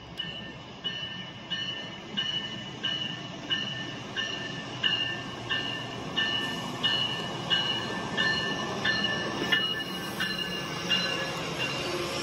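LEGO train running on plastic track, its rumble growing louder as it comes closer, with a bell dinging steadily about one and a half times a second.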